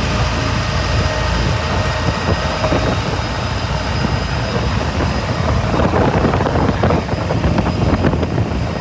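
Cummins QSB 6.7 inline-six diesel (550 hp) driving a 9 m speedboat at speed, a loud steady engine drone mixed with rushing water and wind. The propeller is too heavy for the engine, which the owner says makes it lose revs.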